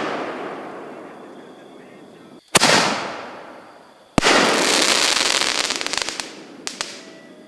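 Fireworks going off: a sharp bang about two and a half seconds in, then another bang a second and a half later that runs into a couple of seconds of dense crackling. Each bang trails off slowly.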